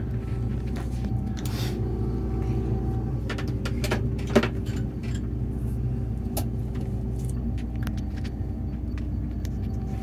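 Combine harvester's engine running steadily, a low even hum heard from inside the cab. A few light knocks, and one sharp click about four and a half seconds in.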